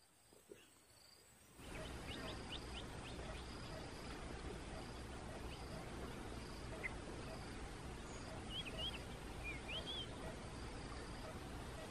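Outdoor rural ambience after a second and a half of silence: a steady background hiss with a few faint bird chirps, quick rising notes about two seconds in and wavering calls near the end. A faint insect-like pulsing sounds high above them.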